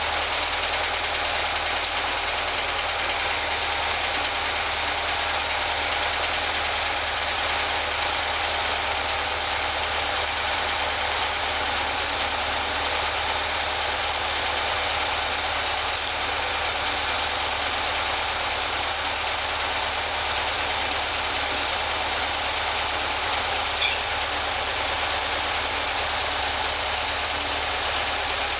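Air-cooled 2110cc VW flat-four running steadily at idle on an engine stand, fed by twin carburettors that are being adjusted during its first start-up. The engine speed holds even throughout, with no revving.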